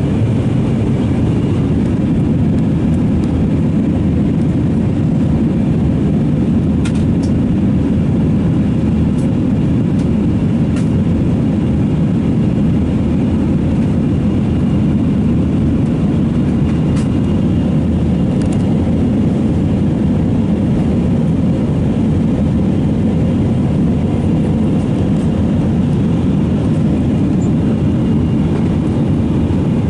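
Steady low drone inside the cabin of an Airbus A320-232 in flight: engine noise from its IAE V2500 turbofans mixed with rushing airflow, with a few faint clicks.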